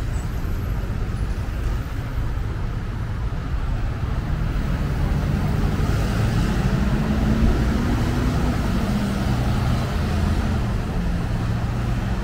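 Motor traffic on a city street: a steady low rumble, with an engine hum that swells through the middle and then eases.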